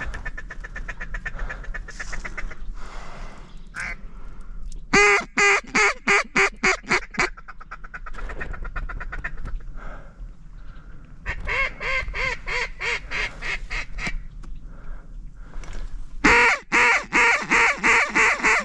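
Mallard duck call blown in three loud runs of rapid quacks, about six a second: a hunter calling to bring circling mallards into the decoys. Fainter quacking between the runs.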